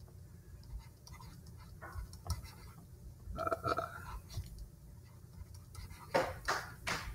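Faint, scattered scratching of a stylus writing by hand on a tablet, with a few louder strokes near the end.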